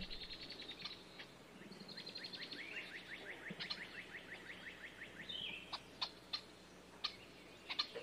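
Small songbird singing a fast trill of short, high, downward-slurred notes, about eight a second, lasting a couple of seconds. Scattered single chirps and a few sharp clicks follow.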